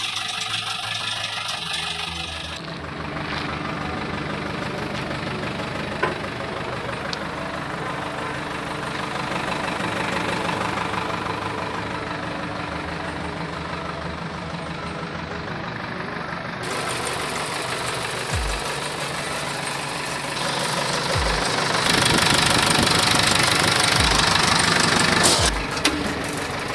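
Diesel engine of a JCB 3DX backhoe loader running steadily while it works, growing louder for a few seconds near the end, with a few dull low thumps in the second half.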